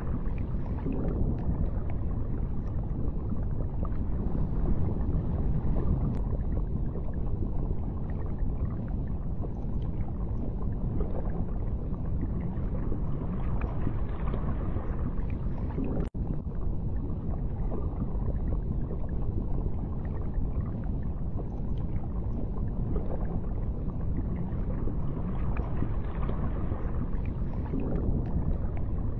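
Underwater ambience: a steady low rumble and wash of water, with a brief dropout about halfway through.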